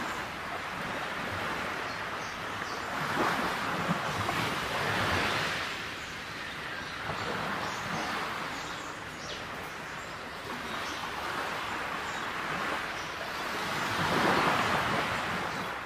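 Wind blowing over the microphone: a steady rushing noise that swells in gusts about four seconds in and again near the end.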